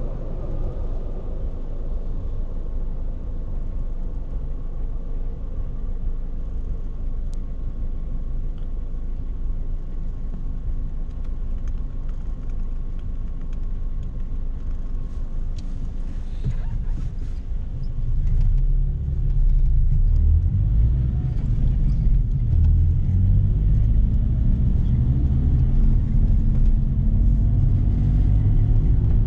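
Renault Clio Symbol's engine heard from inside the cabin, running at a low steady rumble while the car waits in traffic. About two-thirds of the way through it grows louder as the car pulls away, and its note rises as the car accelerates.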